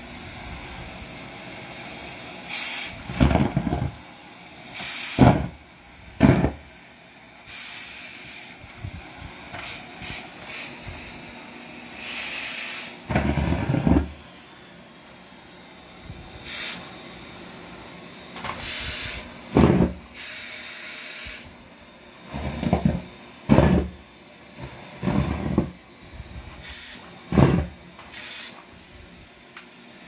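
Vacuum cleaner running with a steady rushing hiss, broken by about fifteen loud, short bursts at irregular intervals as the nozzle sucks up scraps of popped rubber balloons.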